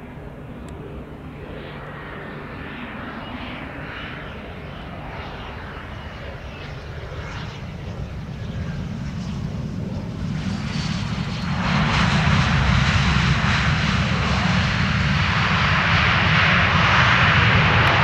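Dassault Falcon 2000LX business jet's Pratt & Whitney Canada PW308C turbofans on landing: a steady jet rumble with a faint whine that grows slowly louder as the aircraft comes in and touches down. About eleven and a half seconds in, the engine noise jumps suddenly to a much louder rush, which holds while the jet rolls out on the runway.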